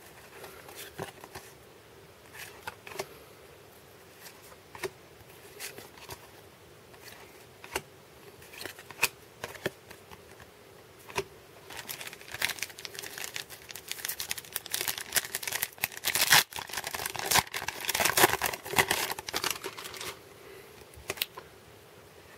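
Trading cards being handled and slid past one another, with scattered light clicks of card stock. About halfway through, a foil card-pack wrapper crinkles and tears for several seconds as a new pack is opened.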